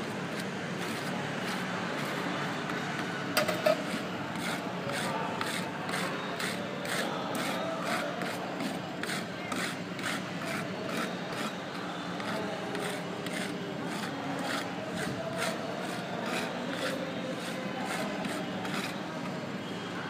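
Metal spatulas scraping and chopping ice cream mix on the frozen steel plate of a fried ice cream (cold-plate) counter, in repeated rasping strokes about two a second. A louder metal knock comes about three and a half seconds in.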